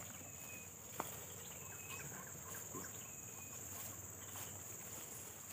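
Insects trilling steadily at a high pitch in tall grass, with a few faint short chirps over it and one soft tap about a second in.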